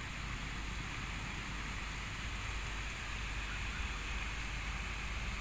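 Steady outdoor background noise: an even hiss over a low rumble, with no distinct calls or knocks.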